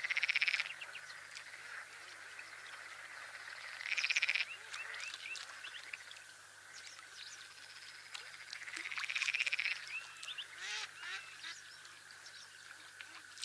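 Birds calling, with three louder rapid trilling bursts about four to five seconds apart over scattered short chirps.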